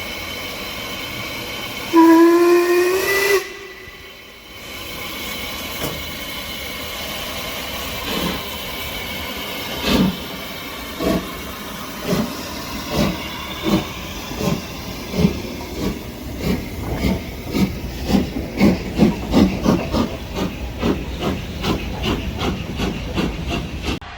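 Steam locomotive whistle blast of about a second and a half, its pitch rising slightly, over hissing steam. The locomotive then starts away, its exhaust chuffs slow at first and quickening to about three a second.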